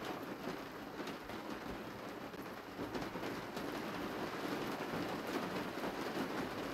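Rain falling steadily, an even hiss with nothing else standing out.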